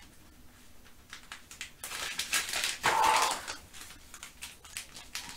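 Hands rummaging through a stock of small spare parts: rustling and rapid clicking, busiest from about two to three and a half seconds in.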